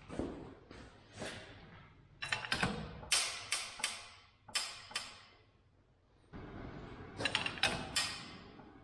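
About a dozen sharp cracks and pops from a Kubota U10 excavator stick and its strap loaded in a hydraulic shop press, coming in clusters with a quiet gap partway through. A steady hiss runs under the last few cracks.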